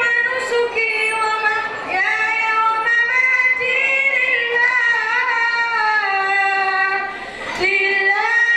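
A boy's voice chanting Qur'anic recitation into a microphone in the melodic tajwid style, drawing out long, ornamented held notes. The voice pauses briefly for breath about seven seconds in and starts a new phrase.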